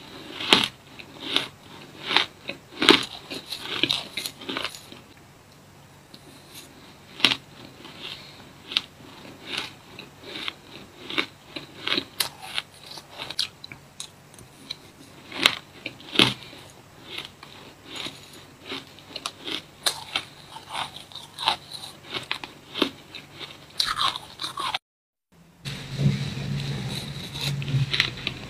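Powdery shaved ice crunched and chewed in the mouth, spoonful after spoonful: sharp, irregular crunches in quick clusters. Near the end the sound drops out briefly, then the crunching carries on over a low hum.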